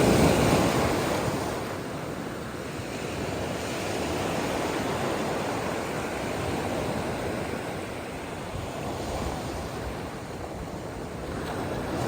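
Ocean surf breaking on a beach. A wave crashes at the start and washes out into a steady rush, and the next wave builds near the end.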